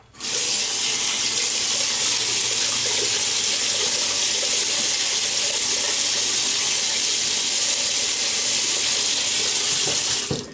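Water running steadily from a sink tap, turned on just after the start and shut off near the end.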